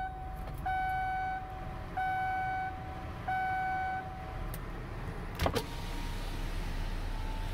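2015 Chevrolet Impala Limited's 3.6-litre LFX V6 idling just after a start, sounding normal on its fresh oil after an engine flush. The dashboard warning chime sounds three times, evenly spaced, and stops about four seconds in. Two sharp clicks come about five and a half seconds in.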